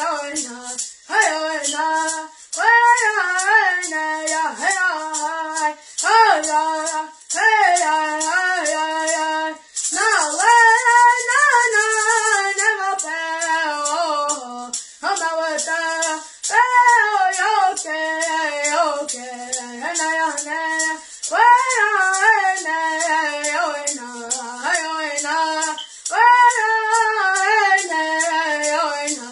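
A boy singing a Hopi corn dance song alone in a high voice, in short phrases, and shaking a hand rattle to a steady beat.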